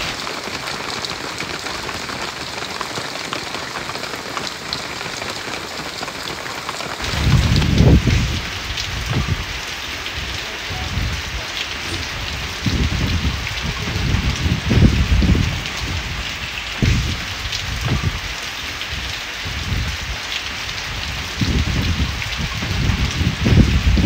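Steady rain falling. From about seven seconds in, irregular low rumbles surge and fade over it, the loudest of them about fifteen seconds in and near the end.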